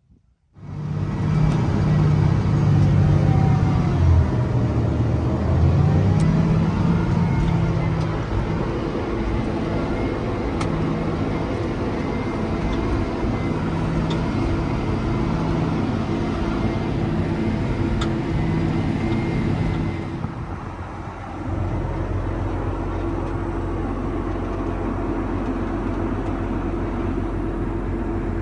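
Diesel engine of heavy earthmoving machinery running steadily. About 21 seconds in it dips briefly, then settles into a different, deeper steady drone.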